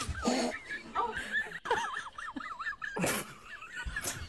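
People laughing, high-pitched and wavering, with a few louder laughing bursts.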